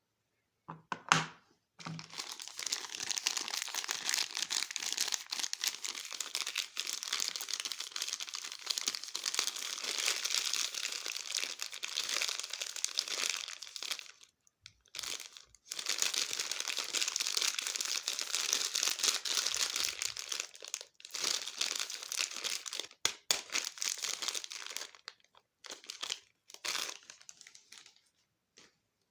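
Soap packaging being unwrapped by hand: a sharp click about a second in, then long stretches of steady crinkling and crumpling with some tearing, broken by brief pauses and ending in short bursts.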